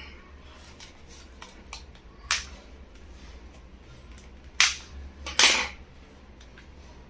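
Stapled product packaging being pried and pulled open by hand: three sharp snaps spread a couple of seconds apart, the last one longer and noisier, like a short rip.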